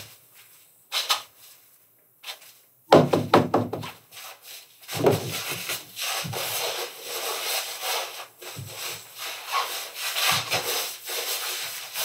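Hand rubbing back and forth over a board lying on a worktable, a continuous scraping swish in repeated strokes from about five seconds in. Before that, a few short knocks and handling sounds.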